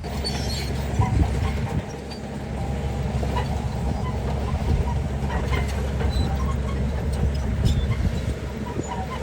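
Heavy earthmoving machinery's diesel engine running steadily with a deep rumble, with many scattered clanks and knocks over it.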